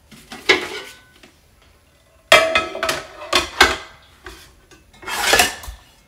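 Caraway ceramic-coated pots and lids clanking and knocking together as they are handled and a lid is tried on a pot. The loudest is a sharp clank with a short ring about two seconds in, followed by a few lighter knocks.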